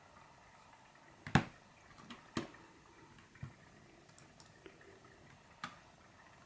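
Computer mouse clicking: a handful of separate sharp clicks, the loudest about a second and a half in.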